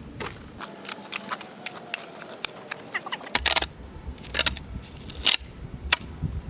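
A metal tool scraping and clinking on a gritty road surface as dry sand and cement are turned over and mixed together, in irregular strokes.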